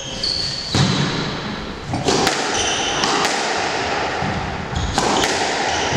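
Squash rally: the hard rubber ball cracks off rackets and the court walls in a string of sharp knocks a second or so apart, with short high squeaks from court shoes on the wooden floor.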